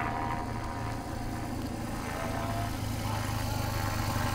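Motorcycle engine running as the bike rides past on the road, with the engine hum growing louder near the end.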